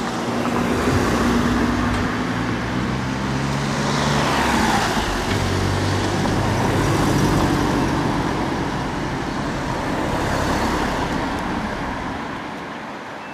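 Road traffic: motor vehicles passing on the street, with the sound swelling and fading several times and one passing vehicle's whine falling in pitch a few seconds in.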